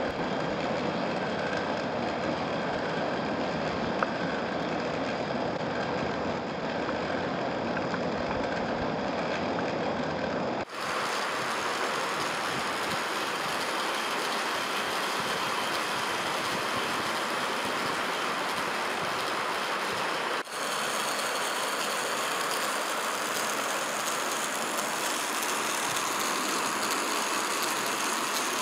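Small battery-powered electric motor running steadily, turning a Meccano Ferris wheel through a belt and pulley drive. The sound shifts abruptly twice, at about a third and two thirds of the way through.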